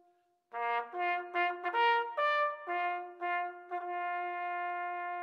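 A bugle call on a brass horn: after a short gap, a quick run of short notes stepping among the bugle's few natural pitches, then a long held note. It is played in remembrance at an Anzac Day service.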